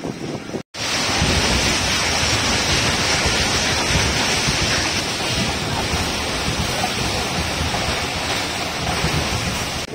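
Steady, loud rushing noise of a passenger train running at speed, heard from inside the coach. It starts abruptly about a second in.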